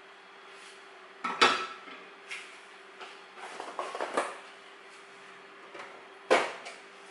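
Square frying pan and wooden spatula clattering as food is scraped off onto a plate and the pan is set back on the gas stove: a run of sharp knocks and scrapes, the loudest about a second and a half in and another strong knock near the end.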